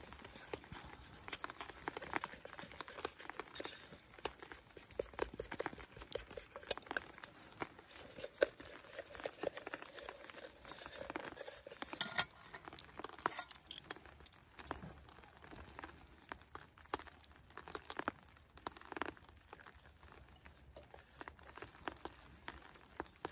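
Wooden spoon stirring pancake batter in a stainless steel pot: irregular soft scraping, clinking and tapping, with some rustling in between.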